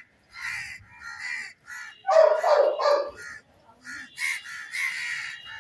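Crows cawing: a run of short, harsh caws about twice a second, the loudest a little over two seconds in.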